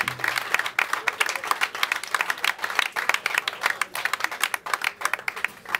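A small audience clapping: a dense patter of separate claps that stops abruptly near the end.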